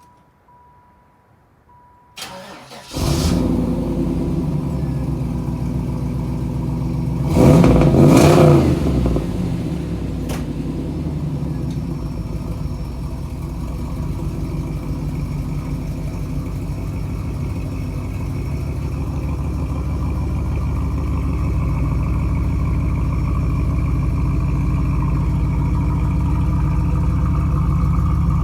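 Car engine cranking briefly and catching, revved once a few seconds later, then settling into a steady idle.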